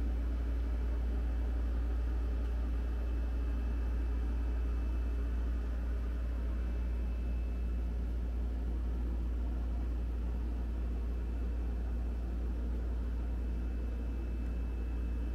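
Steady low mechanical hum with an even hiss and a faint high whine, unchanging throughout: background machine noise of a running fan or similar motor.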